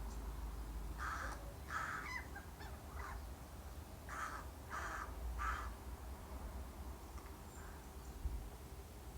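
A crow cawing: two harsh caws about a second in, a few short faint notes after them, then three more caws in quick succession around the middle.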